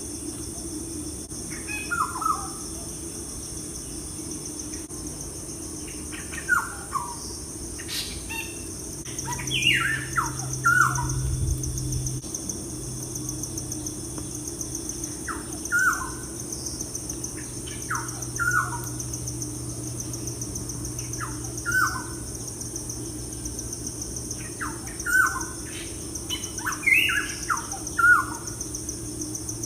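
Birds chirping: short calls that slide quickly downward, scattered every few seconds and coming in small clusters, over a steady high-pitched hiss.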